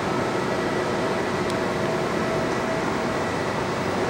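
Steady rush of air and hum from a building's ventilation system, with a few faint steady tones running through it.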